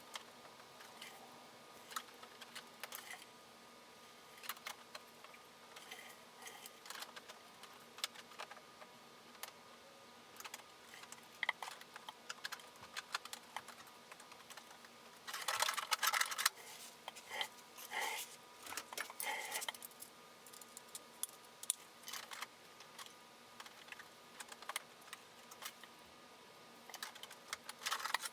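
Irregular light clicks and taps, like small tools or pieces being handled, with a denser rattling cluster about halfway through over a faint steady hum.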